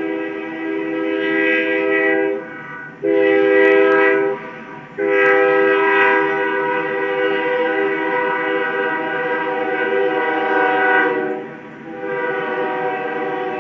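Locomotive air horn sounding a chord of several notes in long blasts. It breaks off briefly after about two and a half seconds, again about a second and a half later, and once more near the end.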